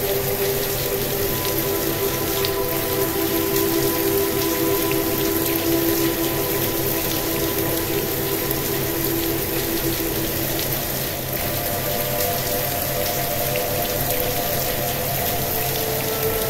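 Steady gentle rain, a dense patter of small drops, mixed with a soft ambient music bed of long held tones that slowly change, shifting to new notes about three seconds in and again around eleven seconds.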